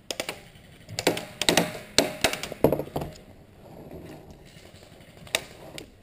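Irregular knocks, clicks and rustling from a person moving on foot over grass and dead leaves and settling into cover, with gear knocking.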